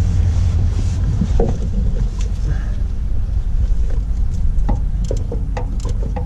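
Steady low rumble with scattered light metallic clicks and taps from hand work at the truck's fuel pump and timing tool.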